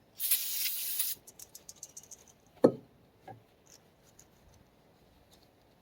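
A hiss lasting about a second. Then scattered light metallic clinks, one sharp knock about two and a half seconds in, and a softer knock shortly after, as tools and parts of the tractor's front axle are handled.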